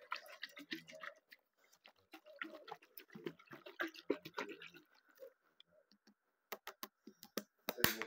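Quiet, irregular taps and clicks of fingers and nails on a plastic water bottle and its flip lid as it is handled, coming in quick clusters with a short lull about five to six seconds in.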